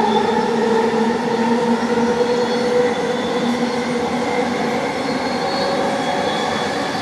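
Vancouver SkyTrain car running along the elevated guideway, heard from inside the car. It gives a steady rumble of wheels on rail under a hum of linear induction motors in several pitches, easing slightly quieter toward the end.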